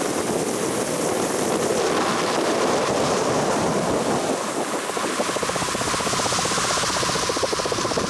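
Motorboat's outboard engine running at speed, with rushing water and wind noise; about halfway through a fast, even pulsing from the engine comes through more clearly.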